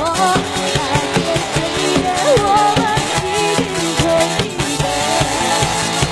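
A live band playing, with a drum kit and cymbals keeping a steady beat under a melody line and backing instruments.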